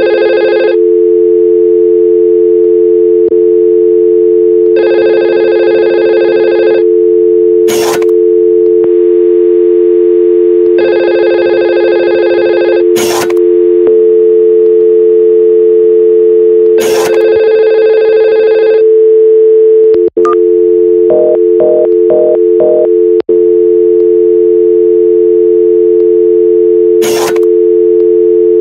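Simulated telephone audio from Cisco Packet Tracer's virtual phones: a steady, loud dial tone runs throughout, with a ringing tone sounding for about two seconds every six seconds through the first two-thirds. About three-quarters of the way in come five short keypad dialing beeps, and a few sharp clicks fall in between.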